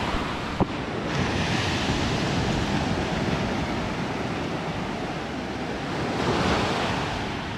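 Black Sea surf washing on a shingle-and-sand beach, a steady wash that swells louder as a wave comes in about six seconds in. A single light click sounds about half a second in.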